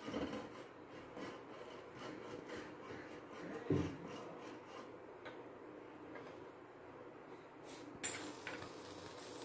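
Silicone brush rubbing oil over a stainless-steel wire grill rack, faint repeated scraping strokes, with one louder knock about three and a half seconds in. Near the end the sound changes abruptly to a steady hiss.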